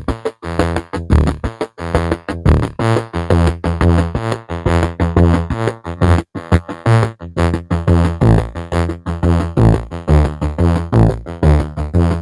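Synthesizer music: a fast run of short, plucked-sounding notes, several a second, over held bass notes.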